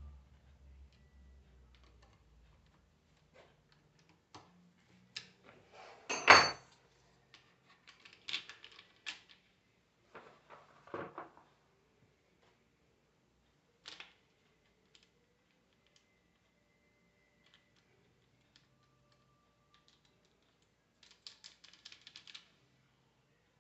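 Metal tools and alternator parts clicking and clanking as they are handled during reassembly, with one louder knock about six seconds in and a quick run of rattling clicks near the end.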